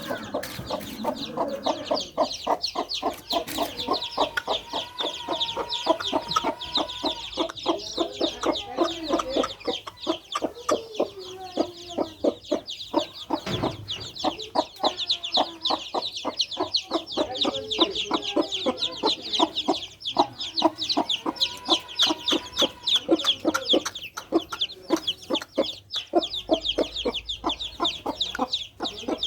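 Deshi hen's four-day-old chicks peeping continuously in a fast stream of high notes, with the hen clucking low and repeatedly among them.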